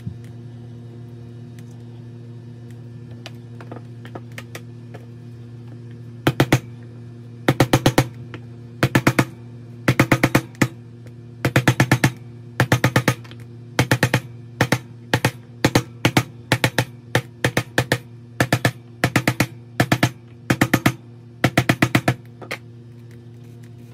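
A small mallet taps a wooden block to ram casting sand down into a metal casting flask. The taps come in quick clusters of two to five, about one cluster a second, starting about six seconds in, over a steady low hum.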